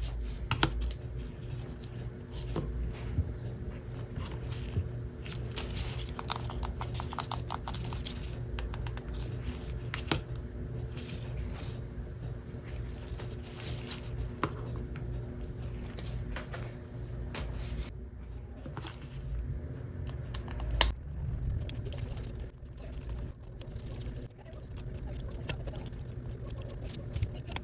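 Irregular small clicks and taps of tools and small plastic parts being handled, like close keyboard typing, over a steady low hum, with a sharper knock about two-thirds of the way through.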